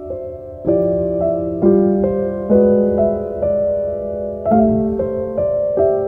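Slow, calm piano music, notes and chords struck about once a second and left ringing.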